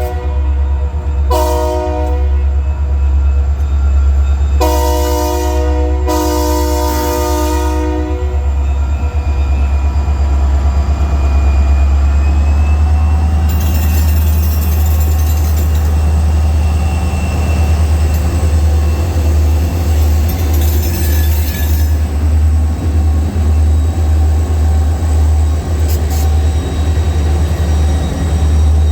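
EMD SD40-2 diesel locomotives passing. The multi-chime air horn sounds several blasts, a short one then longer ones, and stops about eight seconds in. The heavy low rumble of the two-stroke V16 diesels and the noise of wheels on rail carry on throughout.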